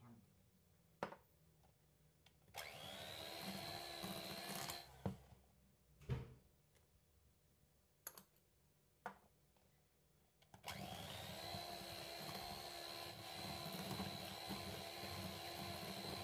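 Electrolux electric hand mixer beating butter and sugar in a stainless steel bowl. It whirs up and runs for about two seconds, stops, and after a few short knocks starts again and runs steadily through the last third.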